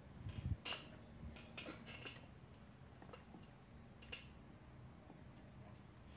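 Screwdriver fastening a small digital thermostat circuit board to a wooden cabinet drawer front: faint, scattered metal clicks and scrapes. A soft knock with clicks about half a second in is the loudest part, and another click comes near four seconds in.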